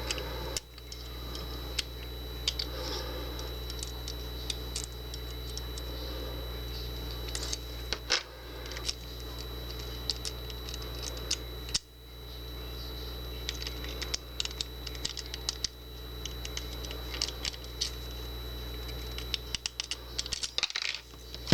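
Irregular small metallic clicks and scrapes of a paperclip rake being worked in a Bunker Hill padlock's keyway, coming thicker near the end, over a steady low hum.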